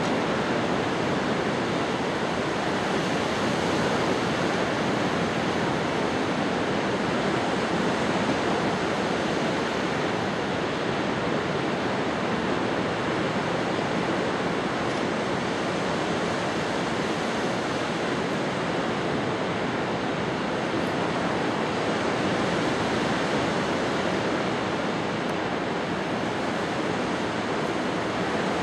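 Ocean surf: a steady, even rush of waves with no distinct breaks.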